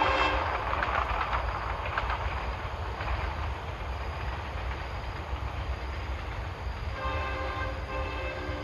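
A horn sounding a steady chord of several held tones, cutting off just after the start and sounding again for about a second and a half near the end, over a continuous low rumble.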